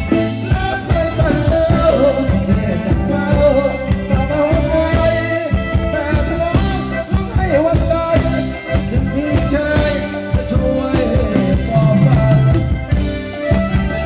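Live band playing Thai ramwong dance music: a singer over electric guitars, keyboard and a steady beat.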